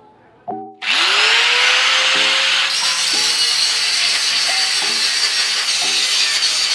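Angle grinder starting about a second in, its whine rising as the disc spins up, then grinding down welds on a steel gate frame with a loud, steady hiss. Background music plays underneath.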